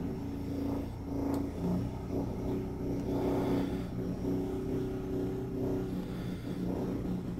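A work vehicle's engine running, its pitch stepping up and down as it revs and eases off.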